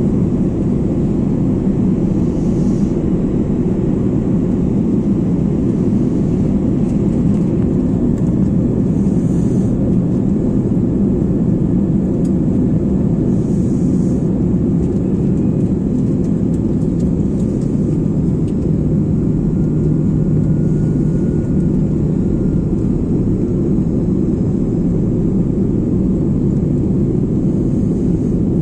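Steady, even rumble of an Airbus A330 cabin on approach, mostly engine and airflow noise heard from a window seat over the wing.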